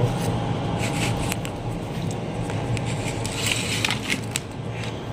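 Small scratching clicks of metal tweezers working a wire on a circuit-board transformer, scattered through the middle seconds, over a steady low background hum.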